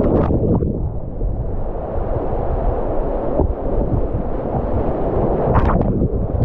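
Floodwater churning and rushing over a low-head dam, a loud, deep, steady rush heard from a camera at the waterline. Short splashy crackles come as waves wash over the microphone near the start and again about five and a half seconds in.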